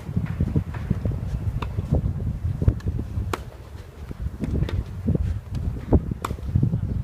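Strong wind buffeting the microphone in a gusting rumble, with several sharp tennis racket-on-ball hits of a rally every second or two.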